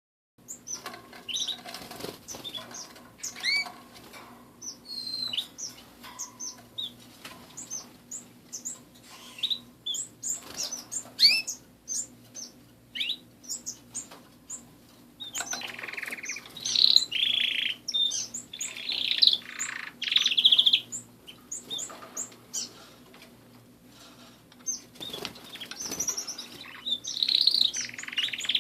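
Several domestic canaries chirping and calling with short whistled notes, breaking into denser trilled song from about halfway through, with wing flutters as the birds move about the aviary.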